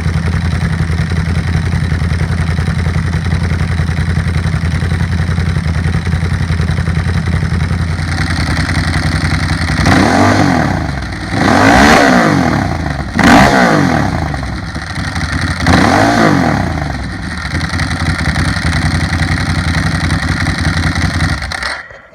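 Exhaust of a 2008 Ducati Hypermotard 1100's air-cooled L-twin, through a Competition Werkes GP slip-on with cat eliminator and an MWR air filter. It idles steadily, then is blipped about four times in quick succession, each rev rising and falling sharply in pitch. It settles back to idle and stops abruptly near the end.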